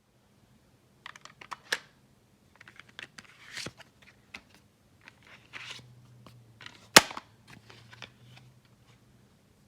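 Plastic clicks and light rustling from a Gotchardriver toy transformation belt and its Ride Chemy cards being handled. One sharp snap about seven seconds in is the loudest sound.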